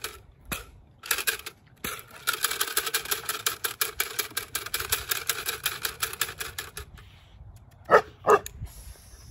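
Clatter stick shaken in rapid bursts, a fast dry rattling of many quick clicks, as the puppy is habituated to it. Near the end the puppy barks twice, short and sharp.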